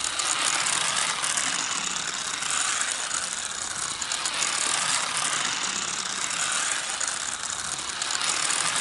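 Battery-powered Magic Tracks toy race car running fast along its flexible plastic track: a steady, rapid clicking whir from its small motor and gears as it drives.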